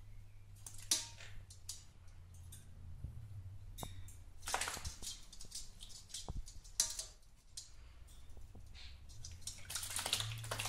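Green-cheeked conure splashing in a shallow stainless steel bowl of water, in several short bursts with light ticks and drips between them, the biggest splash near the end. A low steady hum runs underneath.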